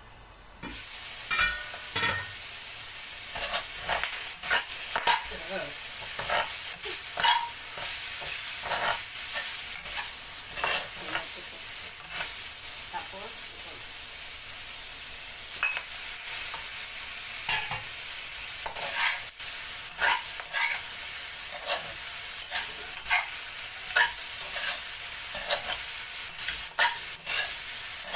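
Stir-frying in a wok: sliced pork, black fungus and bell peppers sizzle steadily in hot oil, with frequent clinks and scrapes of a metal spatula against the pan. The sizzle starts about a second in.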